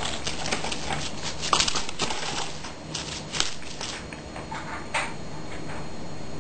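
A cat batting and pouncing at a dangling string toy: a quick run of soft taps and rustles, loudest about a second and a half in, then a few scattered taps.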